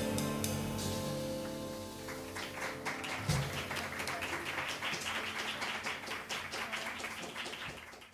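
A live band's last chord on piano, upright bass, saxophone and drums ringing out and fading over the first two seconds, then the audience applauding. There is a single low thump a few seconds in.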